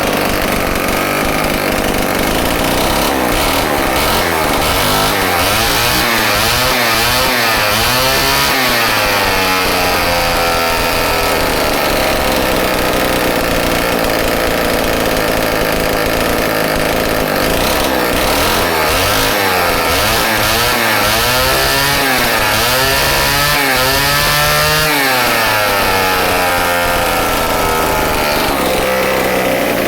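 Homelite XL-12 two-stroke chainsaw engine running, its speed rising and falling repeatedly in two spells with steadier running between.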